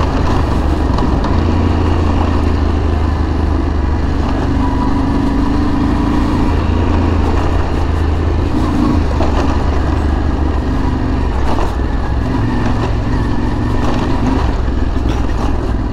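Yamaha Tenere 700's 689 cc parallel-twin engine running steadily while the motorcycle is ridden at speed over a bumpy gravel road, with a few short knocks.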